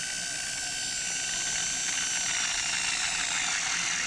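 Electric car polisher running at a slow speed, its motor giving a steady high-pitched whine whose pitch sags slightly partway through.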